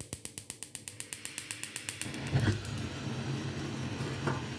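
Gas hob burner's electric igniter clicking rapidly for about two seconds until the gas catches with a soft whoosh, then the burner flame hissing steadily.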